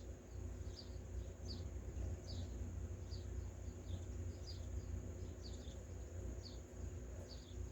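A small bird chirping over and over, one short falling chirp about every second, over a steady high-pitched whine and a low rumble.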